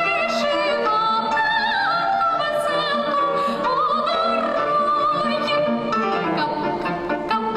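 Classical music performance: a sustained, wavering melody line over lower accompanying notes.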